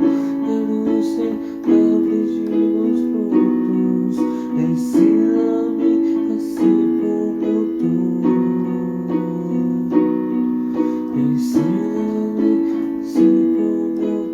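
Instrumental music led by keyboard, with sustained chords and new notes struck about every second and a half.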